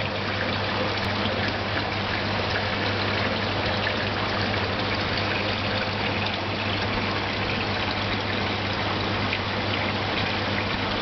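Aquarium water pump running: a steady rush of flowing, splashing water over a low, even hum.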